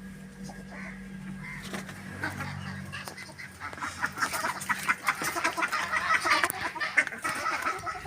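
Farm waterfowl calling: a run of quick, overlapping calls that grows busy about halfway through and goes on to near the end. A low steady hum runs under the first few seconds.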